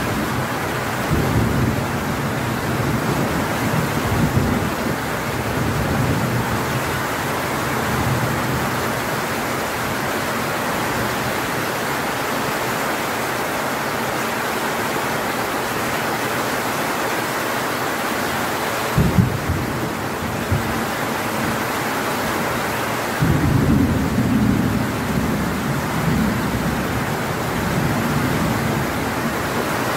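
Heavy tropical rain pouring steadily on leaves and a corrugated metal roof, with low rumbles of thunder coming and going. The rumbling drops away in the middle, two sharp low jolts come just past the halfway point, and it returns strongly about three-quarters of the way through.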